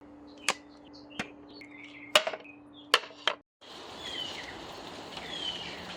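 Five sharp knocks or taps over a steady low hum, with faint chirps between them. It cuts to a moment of silence about three and a half seconds in, then gives way to a steady background hiss with a few descending bird chirps.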